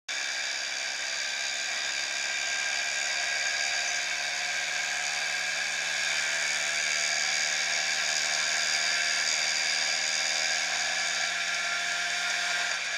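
Motor scooter engine running steadily while riding at cruising speed, a high-pitched whine over road and wind noise, picked up close to the scooter's own handlebars.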